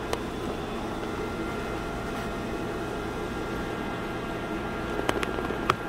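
EVAP smoke machine running a flow test into a truck's fuel tank system through the disconnected purge hose: a steady hiss and hum of air flow, with a few light clicks near the end.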